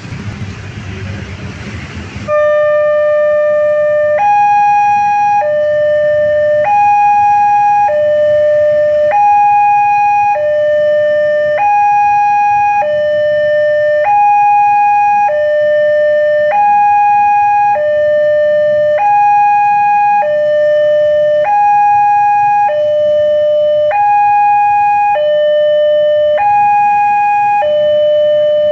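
Railway level-crossing alarm siren sounding a loud two-tone hi-lo wail, switching between a lower and a higher tone about every second and a quarter. It starts about two seconds in, after a brief rumbling noise.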